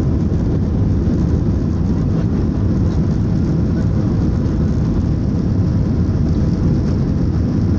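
Airliner's engines heard from inside the passenger cabin as a steady low rumble.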